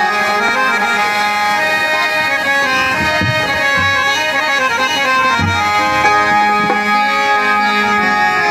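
Instrumental introduction of a Hindi film song: a free-reed instrument plays a melody of held notes over chords, with a few low drum strokes.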